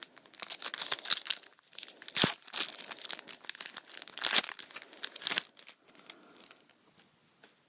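A foil Yu-Gi-Oh booster pack wrapper being torn open and crinkled, with sharp crackling for about five seconds, then only a few faint rustles and clicks.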